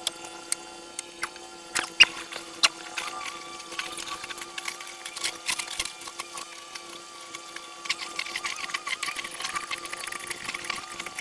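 Hand tools clicking and tapping on metal while a very tight part is worked loose, the sharpest knocks about two seconds in, over a faint steady hum.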